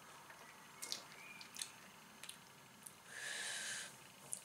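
Faint sipping and swallowing of beer with a few small mouth clicks, then a breath of about a second, starting about three seconds in.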